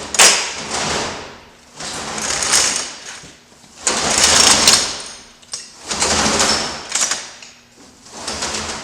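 Steel conveyor chain being pulled by hand into a feed mixer, its links rattling and clattering over metal in about five separate pulls, each lasting about a second.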